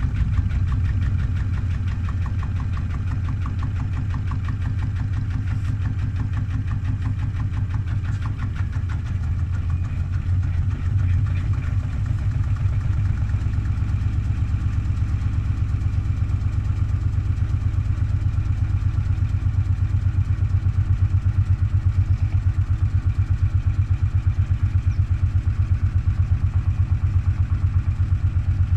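Washing machine running with a steady low rumble and a fast, even pulse from its turning drum, growing a little louder about twelve seconds in.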